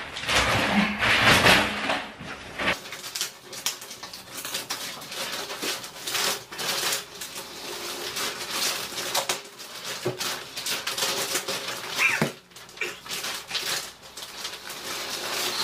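Clear plastic wrapping on a rolled, vacuum-compressed mattress being pulled and peeled off by hand, crackling and rustling irregularly, louder in the first two seconds or so.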